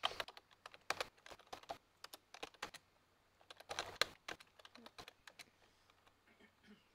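Computer keyboard keys clicking faintly in quick, irregular runs as words are typed, thinning out near the end.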